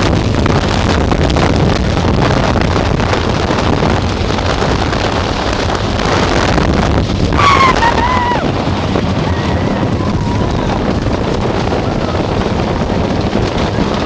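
Wind rushing over the microphone and the rattling rumble of a roller coaster train running fast on wooden track. About seven and a half seconds in a rider lets out a short yell, with a fainter one about two seconds later.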